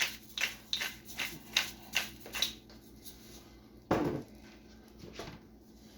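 Hand pepper mill grinding black peppercorns: a quick run of short crunching clicks, about four a second, for the first two and a half seconds. One louder knock follows about four seconds in.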